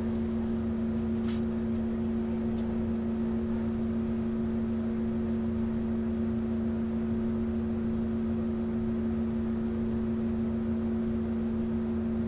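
Steady electrical hum with two constant low tones, with a faint tick about a second in.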